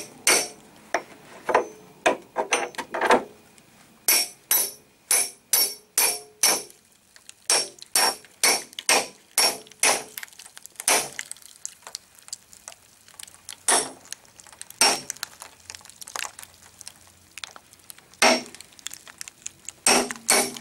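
Hammer strikes on a chisel being driven into the RTV-bonded gap between a sheet-steel panel and plywood, prying the constrained layer damper apart. The sharp metallic blows come in quick runs of two or three a second, then only a few single blows with pauses between.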